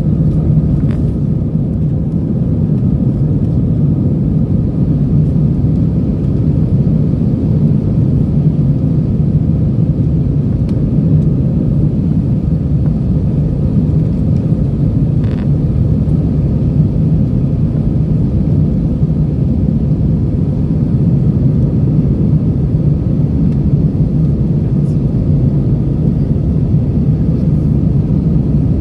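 Airbus A319 jet airliner in climb heard from inside the cabin: a loud, steady, deep drone of engines and airflow, with a faint steady whine above it.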